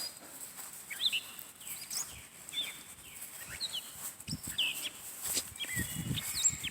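Birds calling, with short chirps scattered throughout, and a few low thumps in the second half.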